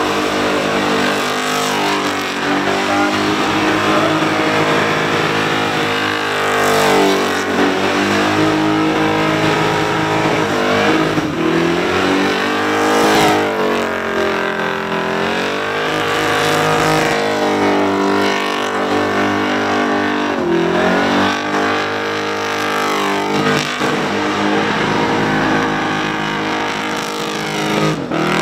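Supercharged, methanol-fuelled VK Holden Commodore doing a burnout: the engine held at high revs, rising and falling again and again, over the steady hiss of the spinning rear tyres.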